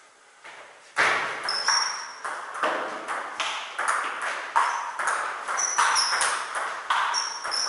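Table tennis rally: the ball clicking off the bats and the table in quick alternation, about two hits a second, starting with the serve about a second in. A few short high squeaks sound among the hits.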